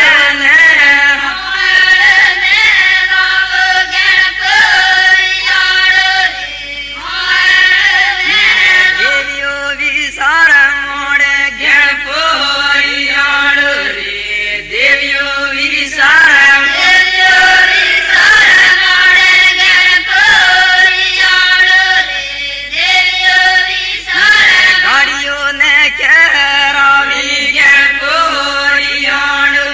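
A group of voices singing a devotional folk song together in a chant-like style, in repeated phrases a few seconds long.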